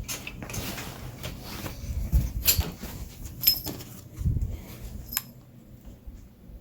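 A pet dog moving about close to the microphone, with scattered clicks, knocks and low thuds. It dies down about five seconds in.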